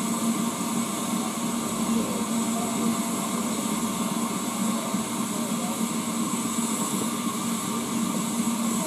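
BR Standard Class 4MT 4-6-0 steam locomotive No. 75078 standing with steam up, giving a steady hiss over a low, even hum.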